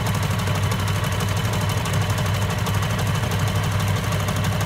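Electric sewing machine running steadily at speed, its needle stitching a zigzag seam through paper pages with rapid, even strokes.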